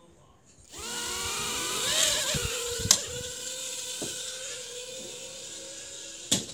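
Small electric motors of a remote-controlled toy whirring up, rising in pitch over about a second, then running at a steady pitch and slowly fading. A sharp click about three seconds in.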